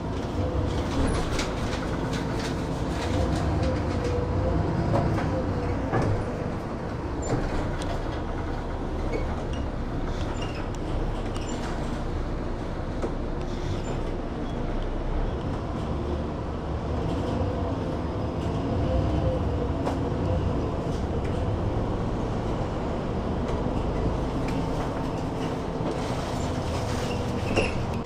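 City bus heard from inside the cabin while driving: engine drone that rises and falls in pitch with speed, over steady road noise and small rattles of the bodywork.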